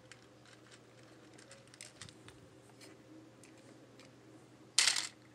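Faint small clicks of plastic perler beads being pressed by fingers onto the pegs of a plastic pegboard. A brief loud rustle comes near the end.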